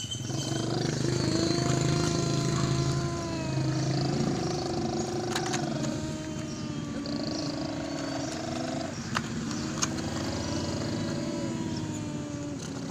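A person's voice making long held engine noises for a toy dump truck, each drawn-out growl lasting a second or two and sliding gently in pitch. A few sharp clicks are heard along with it.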